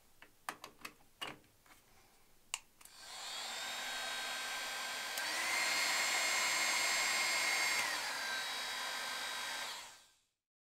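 A plug is pushed into a wall socket and the cord is handled, with a few clicks. Then a switch clicks and a BaByliss BA668E hot air styler starts blowing steadily. About two seconds later another click switches it to a louder setting with a whine on top. It drops back about three seconds after that and is switched off near the end, spinning down quickly.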